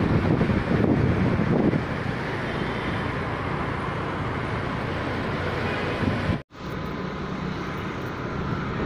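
Road and traffic noise while riding a motorcycle or scooter at night, with wind gusting on the microphone for the first couple of seconds. The sound cuts out abruptly about six and a half seconds in, then a steady traffic noise resumes.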